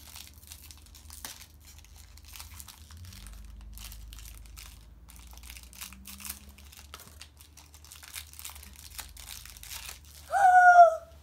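Plastic toy wrapping crinkling and tearing as it is unwrapped by hand and cut open with scissors, in a steady run of small crackles. Near the end, a child gives one short, loud, high-pitched squeal.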